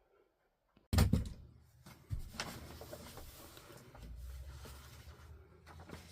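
Dead silence for under a second, then a sudden loud knock and clatter, followed by scattered knocks and handling noises over a low steady hum.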